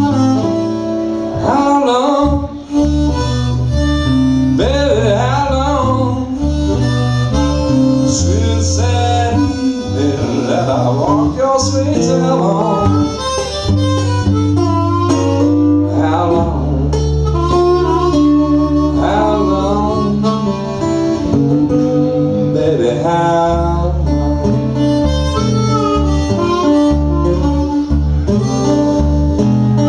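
Blues harmonica solo over strummed and picked acoustic guitar. The harmonica's notes bend up and down in pitch while the guitar keeps a steady bass-note rhythm.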